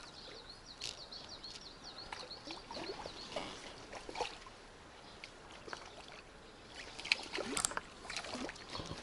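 Light splashing of small fish at the surface of a slow river, with a plainer splash about four seconds in. Near the end come a few louder knocks and rustles.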